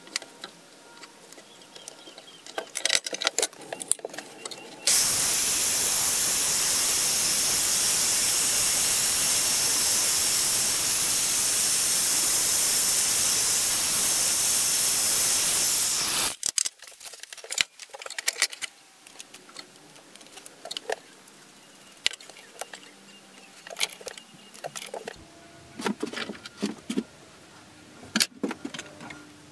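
Small bench drill press running steadily for about eleven seconds as it drills through a wooden knife handle scale, starting and stopping abruptly. Before and after, light clicks and knocks of small parts being handled on a wooden workbench.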